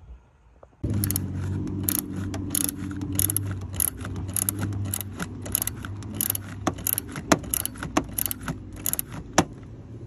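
Ratchet wrench turning a battery terminal nut, its pawl clicking about two to three times a second, to connect a power lead to the positive battery terminal. A steady low hum runs beneath the clicks.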